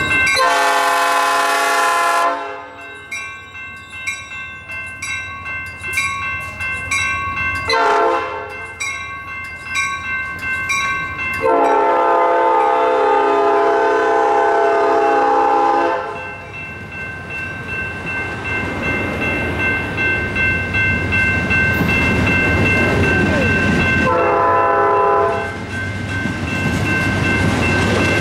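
Passenger train horn sounding a series of blasts as the train pulls out: a long one at the start, a short one, a longer one of several seconds, and another near the end. Between the first blasts a bell rings steadily at about two strokes a second. In the later half the bilevel cars roll past close by, rumbling and clacking over the rails.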